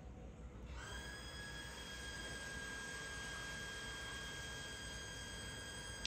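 A steady, high-pitched whistle-like tone comes on about a second in and holds without change, over a faint low rumble.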